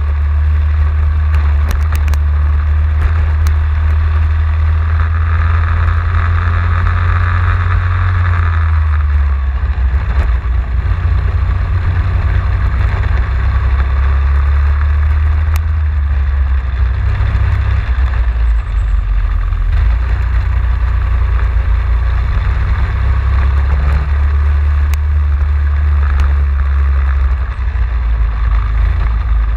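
Racing kart engine running hard, heard from an onboard camera on the kart. Its note drops and climbs several times as the kart brakes into and accelerates out of corners.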